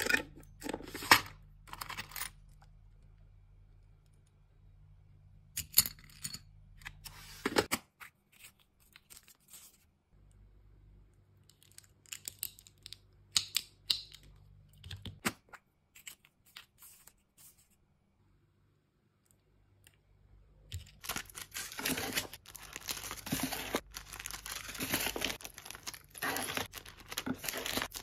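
Close-up handling of plastic hair clips and packaging: scattered clicks and short rattles with quiet gaps between them. From about three quarters of the way in, clear plastic wrapping crinkles without a break.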